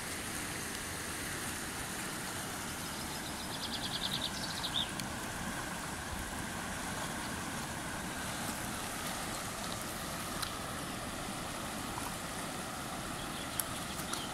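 Steady rush of river water running fast over a weir and shallow rapids. About four seconds in there is a short, high, rapid trill.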